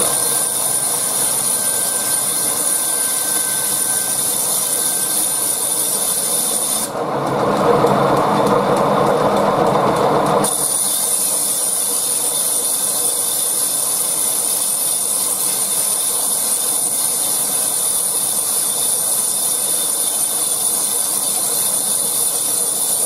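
Large sawmill bandsaw running with a steady hiss, with a louder, rougher stretch of about three seconds some seven seconds in.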